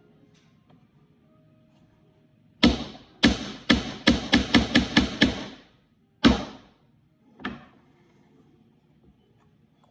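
Hammer driving short nails into a birdhouse kit's wooden panel: a run of about nine blows coming faster and faster, then two more spaced blows, the last one lighter.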